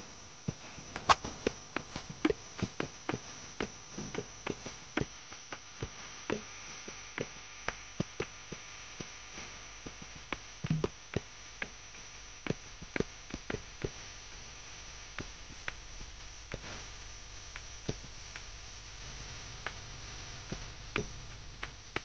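Footsteps on a dirt forest trail: sharp, irregular crunches and clicks, about two or three a second, over a faint steady high hiss.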